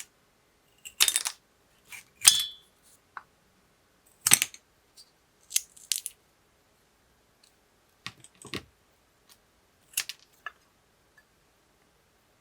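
Handling sounds of small hard craft items: about six separate sharp clicks and clatters, as of things being picked up, tapped and set down on a table.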